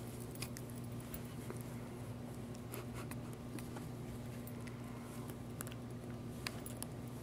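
Husky puppy playing with a plush toy: scattered small clicks and soft rustling from her mouthing and handling the toy, over a steady low hum.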